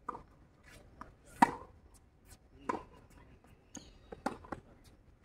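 Tennis rally on a hard court: a string of sharp pops from the ball striking racket strings and bouncing off the court, the loudest about a second and a half in.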